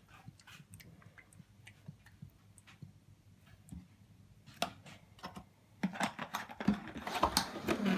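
Light clicks and taps of plastic parts being handled, sparse at first and coming thicker and louder in the second half, as the robot vacuum's mopping attachment is worked by hand.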